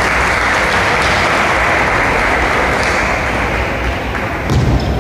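Spectators applauding in a large hall, the clapping thinning out near the end, where a low thump sounds.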